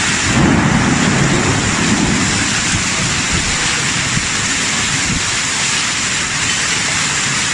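Torrential rain in a violent wind-driven storm, a loud steady rushing roar of rain on paving. A low rumble swells about half a second in and lasts for about a second and a half.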